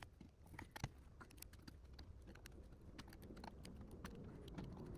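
Faint, scattered small clicks and ticks of a screwdriver and metal parts as screws are run back into a Rochester 2-jet carburetor body.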